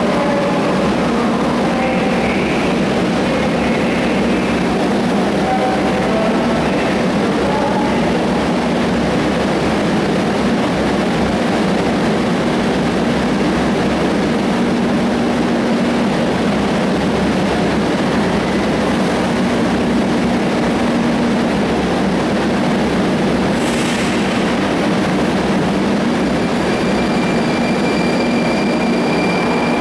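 Moscow Metro 81-740/741 train standing at the platform with a steady hum, a brief hiss about three-quarters of the way through, then its traction motors starting with a rising whine as it begins to pull away near the end.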